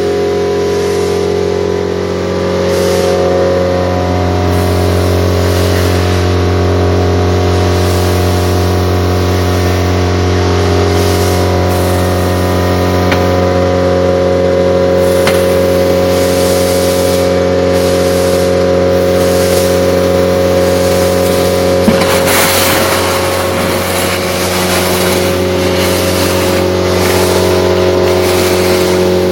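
Multi-Vac portable vacuum loader running steadily, its blower humming while air rushes through the suction wand as it pulls in loose, moist hay feed off a concrete floor. A brief louder surge of rushing noise comes about two-thirds of the way through.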